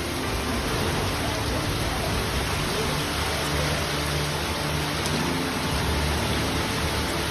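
Steady heavy rain from a tropical storm, an even loud hiss with a low rumble underneath.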